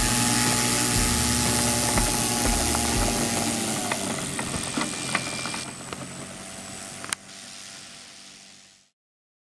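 Engine and propeller of a Fokker Dr.I model aeroplane running on the ground after landing. Its pitch sags about four seconds in and the sound drops away near six seconds, then fades out.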